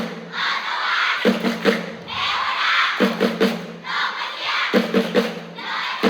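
A cheer squad of children chanting in unison, alternating with a short run of drum beats. The shout-then-drums pattern repeats about every two seconds.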